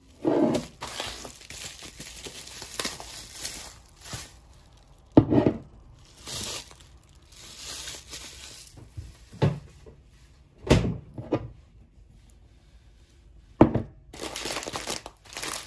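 Plastic packaging crinkling and rustling as groceries are handled and unpacked, with several sharp thunks of jars and packs being set down on a table.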